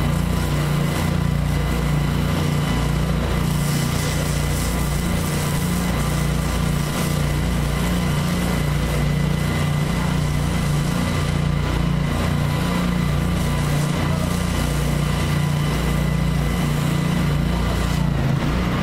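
Engine-driven pressure washer running steadily while its wand sprays a high-pressure jet of water onto concrete, the engine's steady drone under the hiss of the spray.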